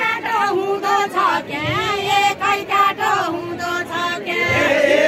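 Deuda folk singing from far-western Nepal: a woman sings a verse in a high voice, and other voices join in.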